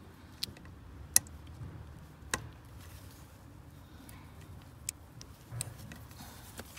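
Scattered sharp clicks and taps of hand tools on screws and parts, about half a dozen at irregular intervals, the loudest about a second in, as the screws holding a PRL intake hose are tightened little by little.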